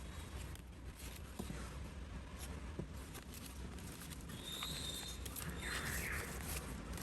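Paper being handled and worked on a tabletop: scattered light taps and rustles, over a low steady hum.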